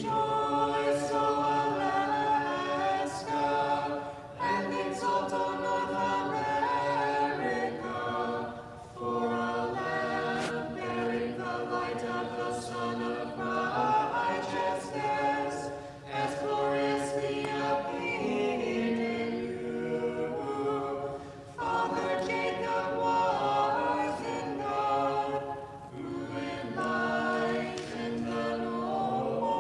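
An a cappella church choir sings an Orthodox vespers hymn in several-part harmony. It moves in sustained phrases of a few seconds each, with short breaks between them.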